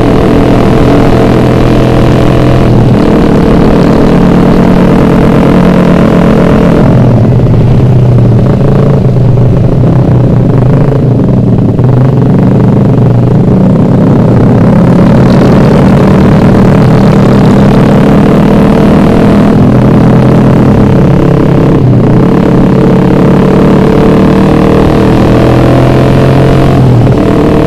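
Ported Suzuki Satria F150's single-cylinder four-stroke engine running through a very loud road-race exhaust while riding, its pitch climbing and dropping several times with throttle and gear changes. Wind rushes over the microphone.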